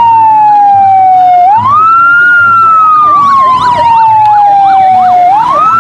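Toy fire engine's electronic siren playing: a slow wail that sinks and then sweeps back up, twice, overlaid with a faster warbling yelp at about three swings a second.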